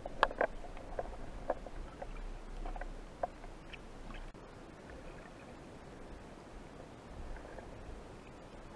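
Underwater ambience picked up by an action camera in its waterproof housing on a speargun: a faint steady hiss with scattered sharp clicks and ticks, most of them in the first few seconds.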